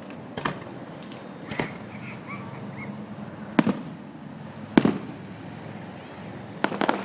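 Fireworks going off: a few separate bangs, the two loudest in the middle, then a quick run of crackling pops near the end.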